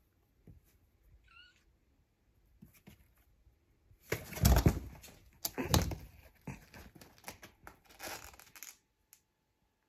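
A kitten gives one short, faint meow about a second in. About four seconds in come loud thumps and a scramble of rustling as it jumps down from a wardrobe shelf, followed by scrabbling on the shelves and clothes.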